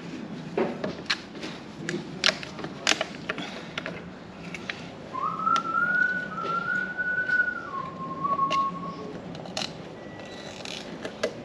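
A person whistling a few held notes for about four seconds, midway through, the last note lower, amid scattered sharp clicks and knocks of things being handled.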